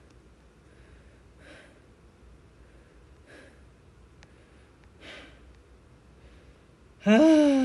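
A man's slow, audible breaths, one roughly every two seconds. Near the end comes a short, loud voiced sigh that rises and then falls in pitch.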